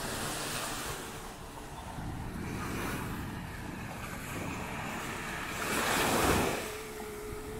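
Surf washing up on a sandy beach, with one wave breaking loudly about six seconds in. Wind buffets the microphone.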